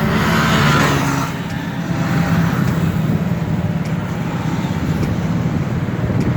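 Steady running noise of a moving road vehicle heard from on board: engine and road rumble, a little louder for the first second or so.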